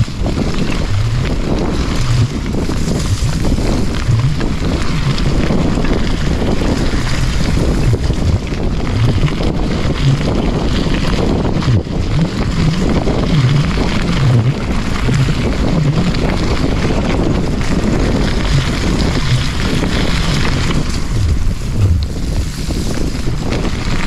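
Wind buffeting the camera's microphone while a mountain bike rides along a dirt trail, with the low, uneven rumble of the tyres and frame over the bumpy ground.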